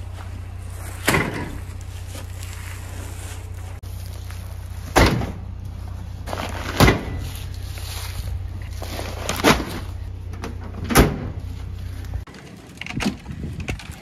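Heavy feed sacks dropped one after another into a pickup truck's bed: five dull thuds, a second or more apart, over a steady low rumble that cuts off near the end.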